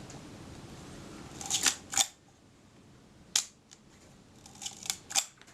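Kodak Retina IIIS rangefinder camera's mechanism clicking as it is wound and fired: sharp mechanical clicks of the film advance and shutter release, a pair about a second and a half in, a single click in the middle and a quick cluster of three or four near the end, as the newly adjusted film release is tested.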